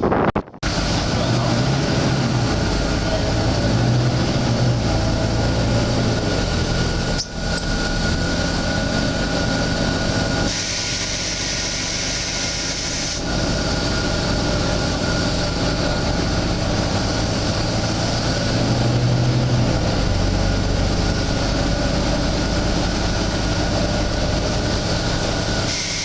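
Volvo B9TL double-decker bus's diesel engine running on the move, with a constant high hiss over the engine and road noise.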